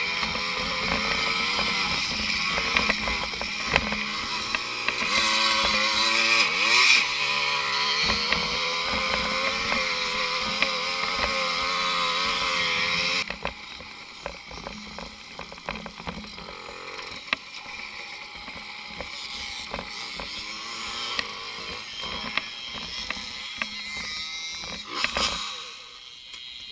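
Small two-stroke moped engine running hard at high revs, its pitch rising and falling as the throttle changes. About halfway through it drops suddenly to a much quieter, lower running, with scattered knocks.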